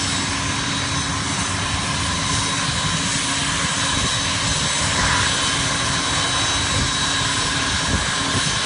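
Aircraft engines running steadily, a loud continuous rush with a high, even whine.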